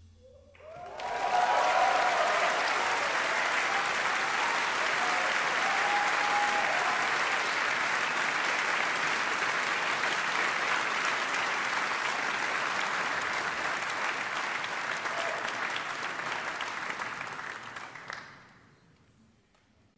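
Concert audience applauding at the end of a song, with a few voices calling out in the first few seconds. The applause starts about a second in and dies away near the end.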